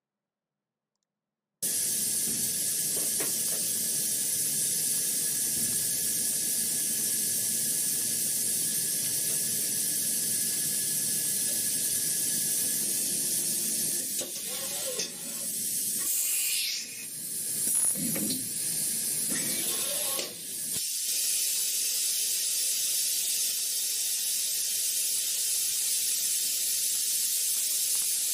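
CNC machine running in a machining demonstration: a steady, loud hiss that starts suddenly about a second and a half in, with a few brief dips and shifting sounds in the middle.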